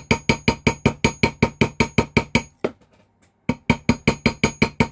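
Rapid, even light taps of a cross pein hammer on a metal rivet held on a steel ring mandrel, about seven strikes a second, each with a bright ringing tone. The strikes pause for about a second midway, then resume. The rivet end is being peened to splay it out and fasten the ring.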